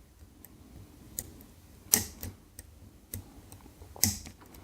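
Small, sharp metallic clicks and ticks of a lock pick working the pins inside a DOM Plura pin-tumbler cylinder, with two louder clicks about two seconds apart. The front pins 1 and 2 are alternately binding, so the picker keeps revisiting them.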